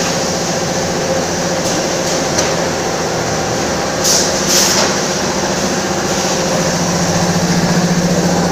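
Automatic tubular-film form-fill-seal bagging machine running with a steady mechanical hum. A few faint clicks come early, and two short hisses come about four and a half seconds in.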